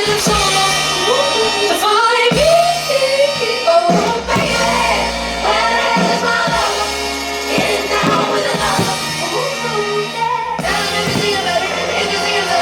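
Music with a lead singing voice over held bass notes and a drum beat.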